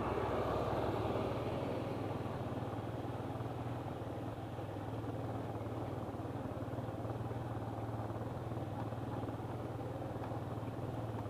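Motorcycle engine running steadily while riding, under wind and road noise; a little louder for the first couple of seconds.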